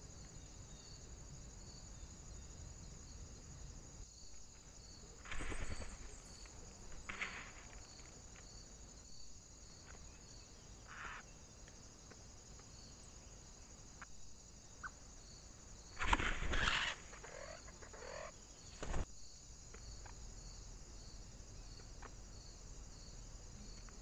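Eurasian jay feeding at a seed dish: a handful of short scuffs and knocks of the bird moving and pecking on the dish, the loudest about two-thirds of the way through, over a faint steady high hiss.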